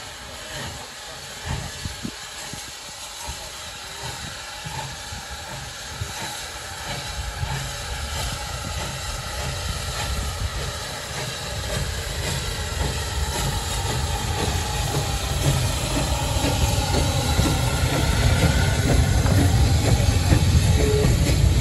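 Steam locomotive in SE&CR livery pulling away with a train of coaches: exhaust beats and steam hiss, growing steadily louder as it comes closer. Near the end a heavy low rumble of wheels on rail as the engine's tender and the coaches pass close by.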